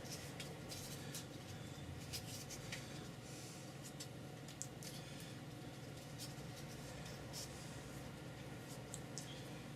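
Faint scratching, rustling and light clicks of paper and board being handled and pressed by hand, over a steady low hum.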